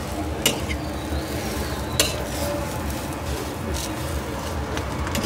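Egg frying on a flat steel griddle with a steady sizzle, while a metal spatula scrapes and taps on the griddle, with two sharp taps, about half a second and two seconds in.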